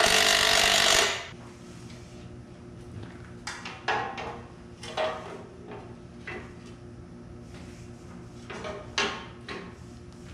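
A power tool runs loudly for about the first second and then stops. After that come scattered light clinks and knocks of metal tools and parts being handled, the loudest about four and nine seconds in, over a faint steady hum.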